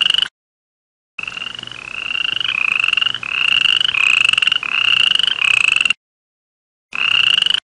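A male toad calling, its throat puffed out: a high, rapid trill made of a string of phrases, each rising slightly in pitch. The trill is heard briefly at the start, runs for nearly five seconds from about a second in, then returns briefly near the end, cutting off suddenly into silence each time.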